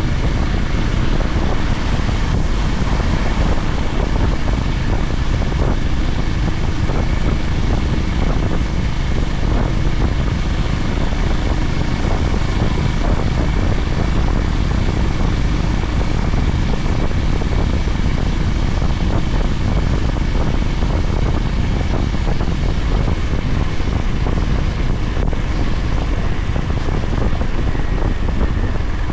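Honda GB350's air-cooled single-cylinder engine running steadily under way, its low drone mixed with wind and road rush.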